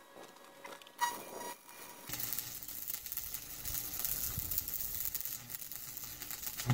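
Stick welding: the electrode's arc strikes about two seconds in and crackles and sizzles steadily as a bead is laid, then breaks off.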